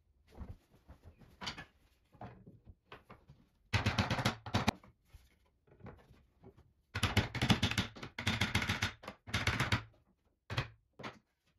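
Four bursts of rapid mechanical rattling, each about a second long, from a fastening tool working on the wooden backrest slats of a bent-log chair. Light knocks of wood on wood come before and after.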